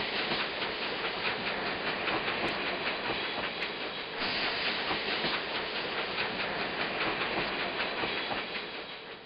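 Added train sound effect: the steady, noisy running clatter of a moving train. It shifts slightly about four seconds in and fades out at the end.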